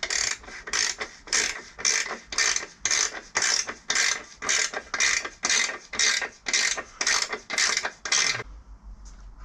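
Ratchet wrench being cranked back and forth, its pawl clicking in short rasps about three times a second, stopping about eight and a half seconds in.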